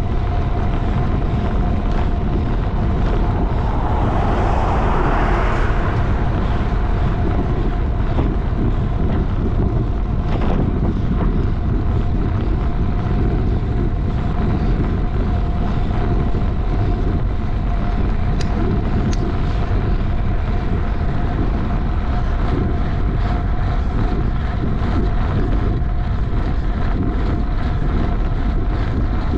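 Steady wind rush on a bike-mounted camera's microphone from riding at speed, with a faint steady whine underneath. A brief louder swell comes about four seconds in.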